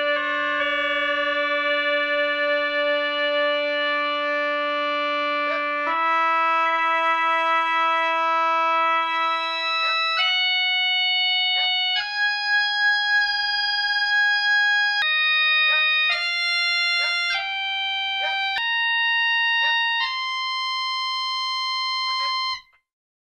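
Henry Willis pipe organ sounding a slow line of held notes, each rich in overtones. The first notes are held for several seconds and the later ones for a second or two. The sound cuts off abruptly near the end.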